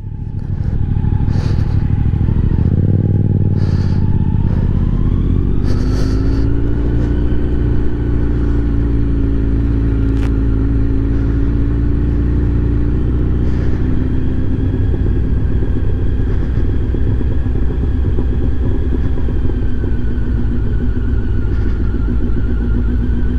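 Kawasaki Z900 inline-four with an Akrapovic exhaust, heard from the rider's seat as it pulls away about two seconds in and then runs at steady low revs. A few short clicks come in the first six seconds.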